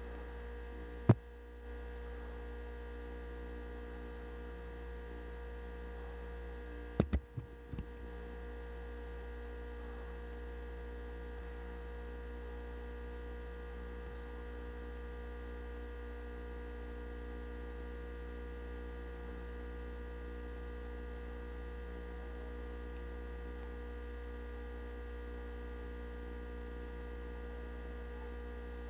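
Steady electrical hum made of several fixed tones. It is broken by one sharp click about a second in and a quick run of three or four clicks around seven seconds in.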